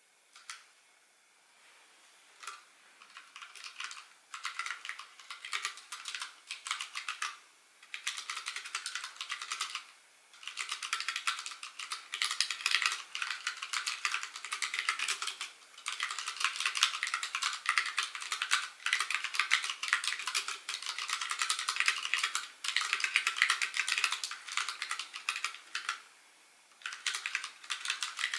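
Fast typing on a keyboard: dense runs of key clicks lasting several seconds, broken by short pauses.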